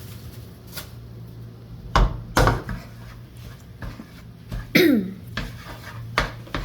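A utensil knocking and scraping in a frying pan while scrambled eggs are stirred: a few sharp clanks, two close together about two seconds in and more near the end, one with a short falling squeak, over a steady low hum.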